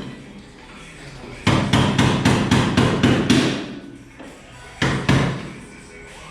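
Hammer blows on the metal door hinge of a 1950 Chevy 3100 pickup, driving at a stuck hinge pin: a quick run of about nine strikes, then two more near the end.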